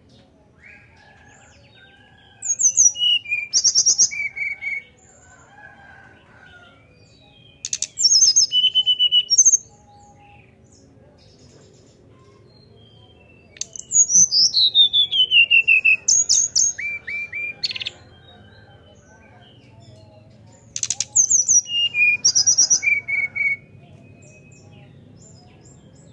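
Brown-chested jungle flycatcher (sikatan rimba dada coklat) singing its fluting whistled song. It gives four bursts of clear, high notes a few seconds apart, some sliding down in pitch, with one long falling glide in the third burst.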